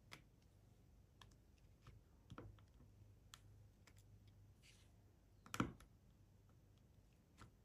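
Faint, scattered clicks of a diamond painting drill pen picking up resin drills and pressing them onto the sticky canvas, with one louder tap about five and a half seconds in.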